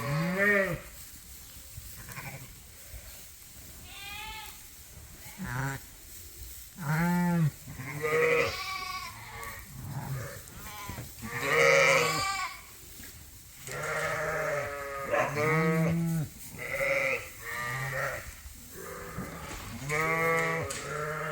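Sheep bleating over and over, with about ten calls from several animals at different pitches, some deep and some higher.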